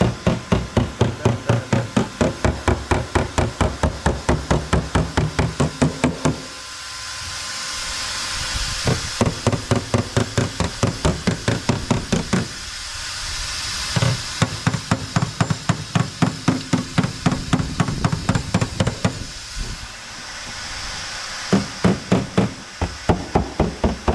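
Hammer tapping rapidly on the steel rear quarter panel while it is held under tension by a winch puller, about four blows a second in runs of several seconds with short pauses between.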